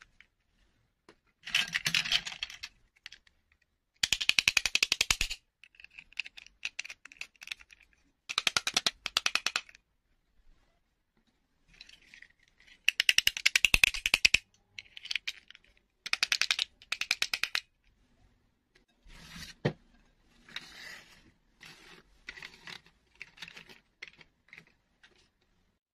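Small plastic princess dolls and their snap-on plastic dresses being handled and fitted: several bursts of rapid clicking and rattling, each lasting a second or so, with softer scattered clicks near the end.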